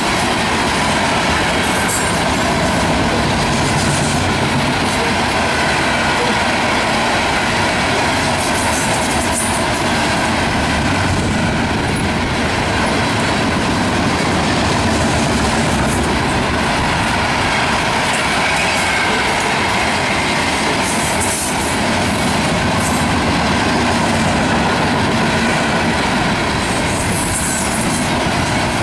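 Iron ore hopper cars of a freight train rolling past on steel rails: a steady rumble and rattle of wheels on track, with brief high hissy flares every few seconds.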